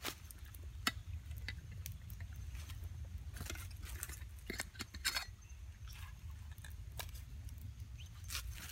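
Small campfire of dry sticks crackling, with irregular sharp pops and snaps, over a low steady rumble.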